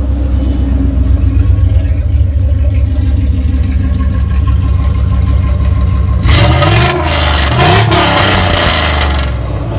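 2000 Dodge Durango's engine running through an exhaust with the muffler deleted and only a gutted catalytic converter left: a steady idle, then revved twice in quick succession about six to eight seconds in before settling back to idle. The note is a growl that is not that loud.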